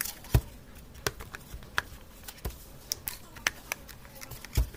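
A mini projector's cylindrical plastic housing being handled and fitted together by hand: scattered small clicks and taps, with two louder knocks, one about a third of a second in and one near the end.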